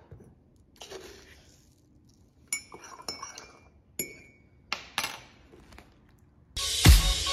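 A metal spoon stirring in a ceramic mug, striking the rim and sides in a handful of sharp, ringing clinks. Loud music with a steady beat starts near the end.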